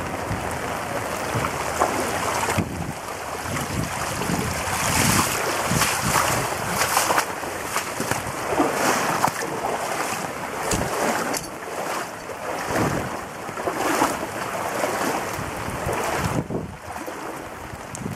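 Floodwater flowing, with rain and wind buffeting the microphone; the noise swells and eases irregularly.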